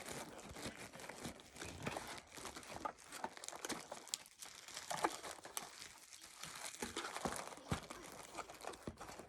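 Crinkling and rustling of packaging as food and tea packets are handled and sorted, with scattered light clicks and knocks.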